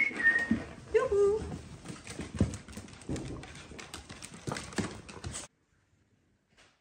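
Miniature dachshunds and a Bengal cat playing on wooden floorboards: paws and claws clattering in quick, irregular knocks, with a short high squeak right at the start. The sound cuts off suddenly about five and a half seconds in.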